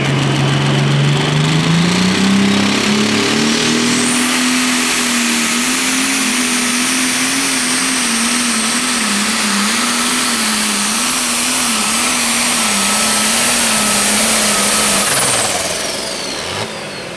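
Case IH 7230 Pro Stock pulling tractor's turbocharged diesel engine at full throttle on a pull. The engine note climbs over the first few seconds with a high turbo whistle rising alongside, then wavers up and down as the tractor pulls. About fifteen seconds in, both drop away as the throttle is let off.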